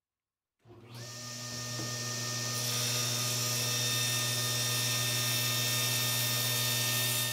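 Table saw starting up about a second in, spinning up over a couple of seconds, then running steadily at speed with a hum, not yet cutting.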